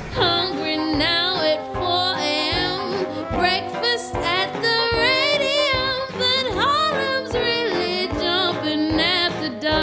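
A woman singing a 1920s-style jazz song with wide vibrato, holding and sliding long notes, backed by a jazz band with saxophone.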